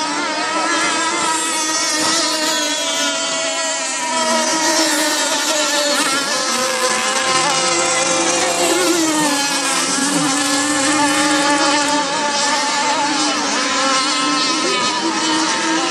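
Racing boat engine running hard at high revs as the boat speeds across the water. Its pitch wavers throughout, falls away about two-thirds of the way through, then climbs again near the end.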